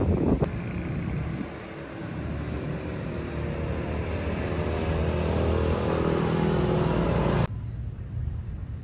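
Motor vehicle engine on the road, its steady note growing louder as it approaches. It cuts off suddenly about a second before the end, leaving faint street background.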